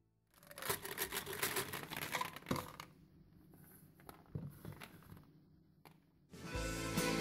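Busy clatter and rattle of small hard objects pushed about by hand on a wooden board, dense for the first couple of seconds, then a few scattered clicks. Guitar music comes in near the end.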